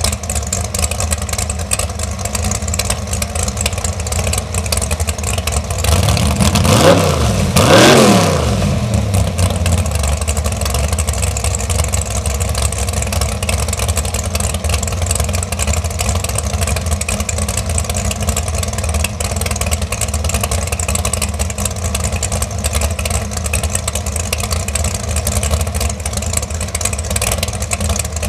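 Dragster engine idling with a steady, lumpy beat, blipped twice about six and eight seconds in, each rev climbing and dropping back; the second rev is the loudest.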